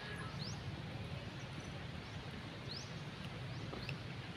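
Outdoor ambience: a steady low background noise with a few short, high, rising chirps a second or more apart, typical of small birds.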